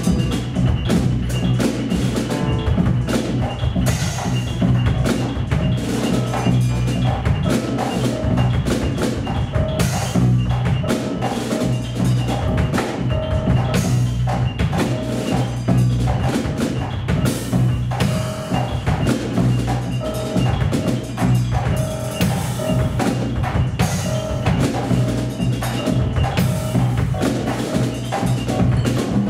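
Live trio of drum kit, grand piano and modular synthesizer playing: a dense stream of quick percussion strokes over a steady low drone.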